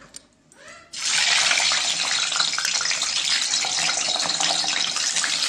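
Boiled, peeled eggs frying in hot oil in a kadhai: the oil starts sizzling suddenly about a second in, as the eggs go in, and keeps up a loud, steady sizzle with many small crackles.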